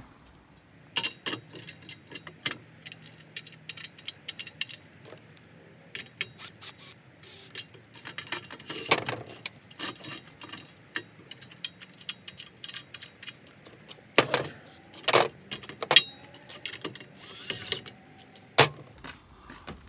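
Scattered clinks and knocks of metal: aluminium truck-rack parts, bolts and fittings being handled and fitted together, with a few louder knocks.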